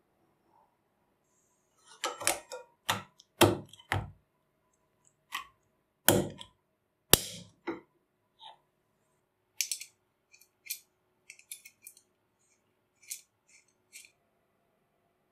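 Small steel parts of a spring-loaded assembly handled and fitted together by hand: a run of metal clicks and knocks, the heavier ones with dull thuds in the first half, then lighter, higher clicks near the end.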